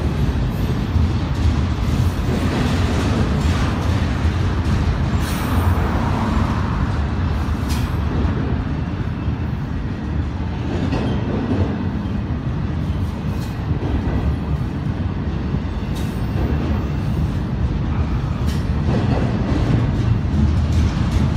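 Double-stack intermodal container train rolling past, with a steady low rumble of steel wheels on rail and a few sharp clanks.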